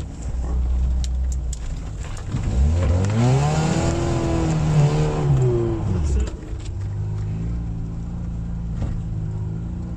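Lada Niva's engine pulling off-road at low revs, revving up about two and a half seconds in, holding high for a couple of seconds, then dropping back to a steady low pull.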